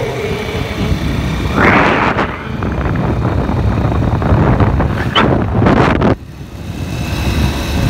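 Steady low rumble of a moving vehicle with wind buffeting the microphone, two louder rushes of noise, and a sudden brief drop in level about six seconds in.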